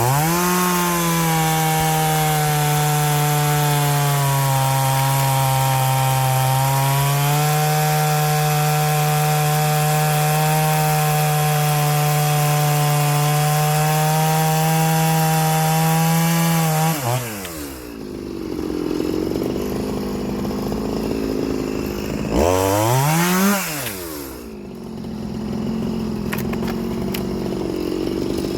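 Two-stroke chainsaw cutting through wood at full throttle, its pitch lifting slightly partway through. After about seventeen seconds the cut ends and the saw drops to idle, with a quick rev up and back down near the end.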